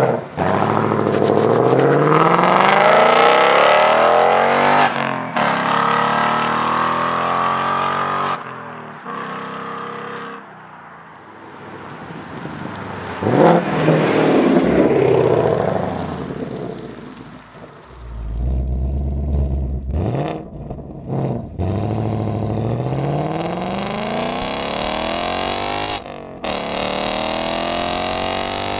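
2019 Ford Mustang GT's 5.0 V8 with active exhaust and a Steeda X-pipe accelerating hard in several pulls, the exhaust note rising in pitch through the gears and breaking at each shift. A deep rumble sits between the pulls about two thirds of the way in.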